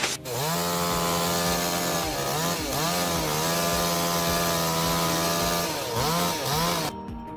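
Chainsaw engine running at high revs, its pitch briefly dropping and climbing back in two quick dips twice, then cutting off abruptly near the end.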